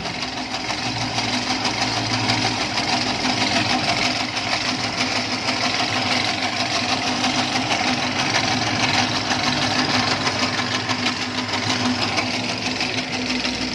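Electric motor driving a home-built motorised noodle machine, running steadily with an even hum and a whirring hiss.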